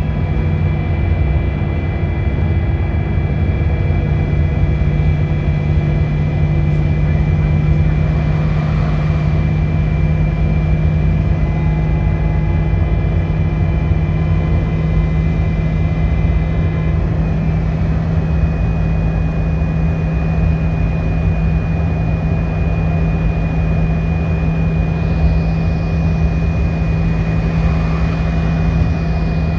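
City bus heard from inside while riding: a steady low engine drone with a rumble beneath and thin high whining tones, which shift slightly in pitch a little past halfway.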